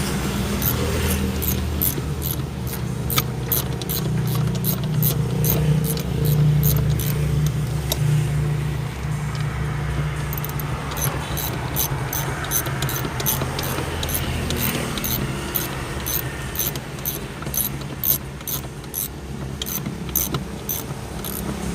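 A car engine running steadily, a low hum overlaid with a regular light ticking, about three ticks a second.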